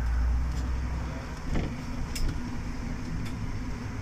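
City bus in motion: a steady low engine and road rumble, with a few light clicks and rattles.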